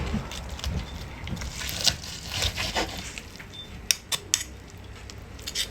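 Metal cooking utensils clinking and scraping, with scattered sharp clinks and a quick cluster of them about four seconds in.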